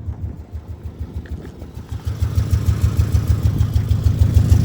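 Subaru Legacy engine idling with a steady, rhythmic exhaust pulsing that grows louder about two seconds in; the car has an exhaust leak and no muffler, and the owner doesn't think the beat he hears is a misfire.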